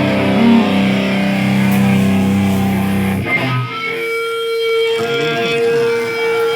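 Electric guitar holding long sustained notes, the note changing to a higher one about three seconds in.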